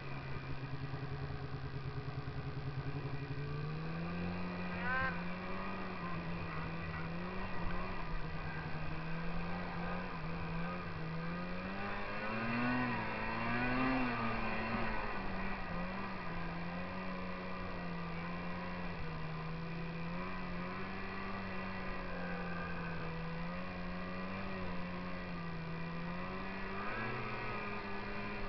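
Snowmobile engine running under throttle. Its revs rise about three and a half seconds in, swing up and down a few times around the middle, then hold fairly steady.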